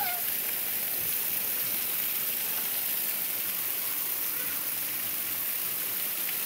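Water from Muktinath's 108 water spouts pouring down in many streams and splashing below, making a steady rushing hiss.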